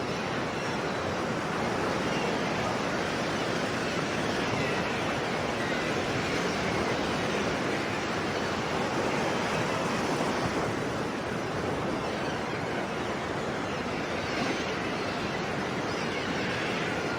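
Sea waves washing onto a shore: a steady, even rush of surf with only gentle swells in loudness.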